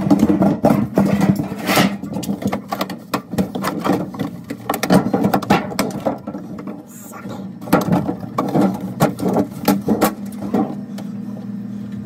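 Plastic evaporator cover and grille being fitted into a refrigerator's freezer compartment: a run of irregular clicks, knocks and rattles of plastic parts being pushed and snapped into place, over a steady low hum.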